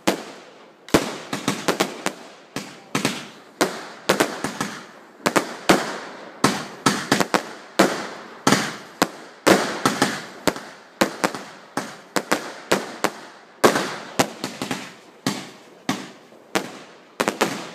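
Fireworks display firing: shells launching and bursting in quick succession, sharp bangs about two or three a second, each trailing off briefly.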